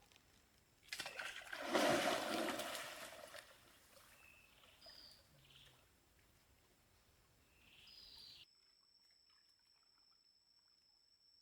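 Water splashing and trickling for about two and a half seconds, starting about a second in, followed by a few short bird chirps.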